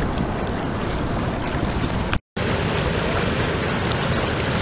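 River water rushing and lapping steadily, with wind on the microphone. It cuts out for a moment about two seconds in.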